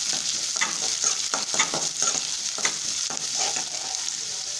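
Chopped onions sizzling in hot oil in a metal kadai while a metal spoon stirs them, with irregular scrapes and knocks of the spoon against the pan over a steady frying hiss.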